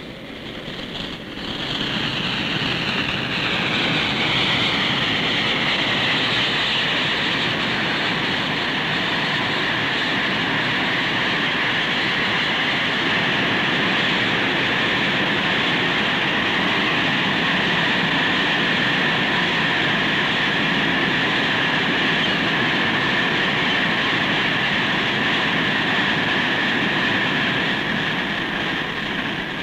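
Norfolk & Western steam train passing: a dense, steady rush of wheel and running-gear noise that swells about a second and a half in. A high whine slides down in pitch over the first few seconds, then holds steady.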